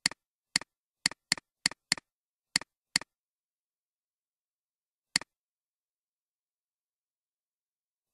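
Computer mouse button clicks, each a sharp press-and-release tick. There is a quick irregular run of eight in the first three seconds, then a single click about five seconds in and another at the end, with silence between.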